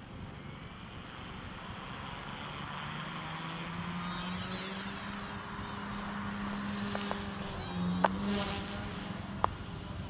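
OMPHobby M1 micro RC helicopter's brushless motors and rotor blades spooling up: a hum and high whine that rise in pitch over the first few seconds, then hold steady as it hovers. A few sharp clicks come near the end.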